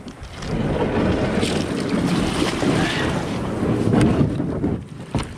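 Plastic kayak hull grinding and scraping over beach pebbles as it is pushed down into the water, with a few sharp clacks of stones about four seconds in. The grinding drops away shortly before the end.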